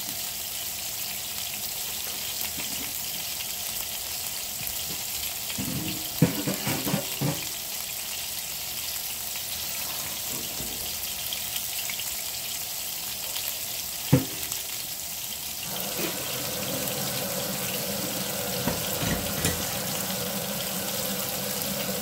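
Meatballs sizzling in oil in a frying pan, with a few sharp metal clanks about six and fourteen seconds in. From about two-thirds of the way through, a rush of water pouring into a sink joins the sizzle as the boiled angel hair pasta is drained.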